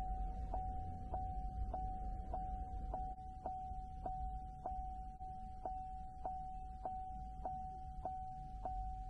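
Car turn signal ticking evenly, a little under two ticks a second, over the low hum of the car, with a steady high tone running underneath.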